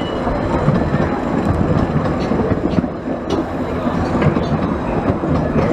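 15-inch gauge steam train running by on the Ravenglass & Eskdale Railway, a steady rumble with many short clicks from the wheels on the track.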